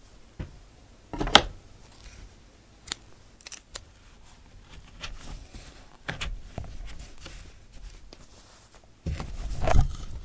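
Linen fabric stretched in a wooden embroidery hoop being handled: rustling cloth with a few sharp clicks and taps, the sharpest about a second in, and a louder rustle with knocks near the end as the hoop is shifted.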